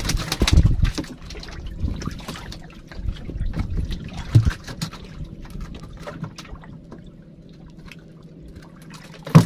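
Water slapping and trickling against the side of a wooden fishing boat, with scattered small knocks and clicks as a longline is hauled in by hand over the gunwale. There is a sharp knock near the end.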